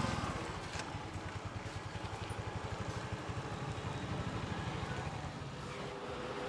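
Small motorbike or scooter engine running with a rapid, even low pulse, easing off after about five seconds. Near the end a steady two-note hum comes in.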